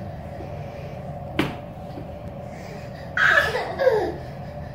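Plastic play-yard panels knocked about by toddlers pushing and climbing on them: one sharp knock about a second and a half in, then a short, louder squeal that falls in pitch near the end.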